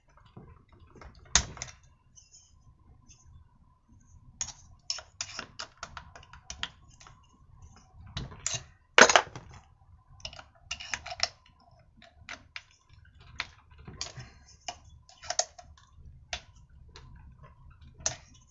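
Light, irregular clicking and ticking of a hand tool on the cylinder screws of a small brushcutter engine as they are tightened in a diagonal pattern, with a few sharper metal clicks, the loudest about nine seconds in.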